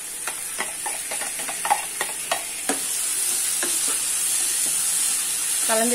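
Chopped tomatoes sizzling in hot groundnut oil with fried onions in a nonstick kadai, the hiss growing louder. A steel spatula taps and scrapes quickly and irregularly, mostly in the first three seconds, as it knocks the tomatoes out of a glass bowl and stirs them in.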